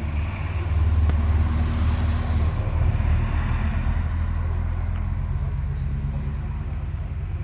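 A car engine running close by with a deep rumble that swells about a second in and then slowly eases off.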